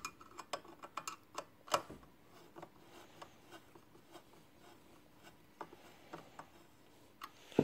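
Screwdriver turning a small screw in a stainless-steel machine housing to loosen it: a string of faint, irregular metal ticks and clicks, one sharper click a little under two seconds in.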